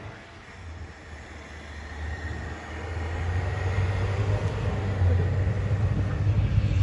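Car engine running hard as the car ploughs through deep snow, with a rushing of tyres and snow, getting louder over the first few seconds.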